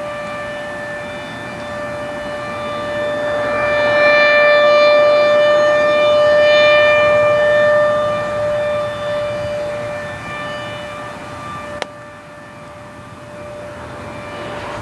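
Federal Signal Thunderbolt 1000 rotating outdoor warning siren sounding a steady single tone without its blower, the blower being faulty, so it has none of its usual scream. The tone swells loud a few seconds in and fades again as the rotating head turns past. A sharp click sounds about twelve seconds in.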